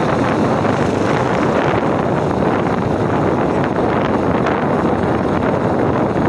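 Steady wind rushing over the microphone on a moving motorcycle, mixed with the motorcycle's running engine and road noise.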